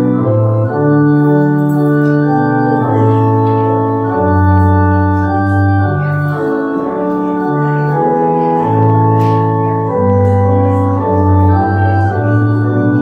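Organ playing the postlude in slow, held chords that change every second or so.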